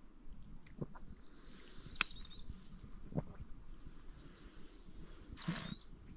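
Scattered footsteps and rustling in vegetation outdoors, with a short high bird chirp twice, about two seconds in and about five and a half seconds in.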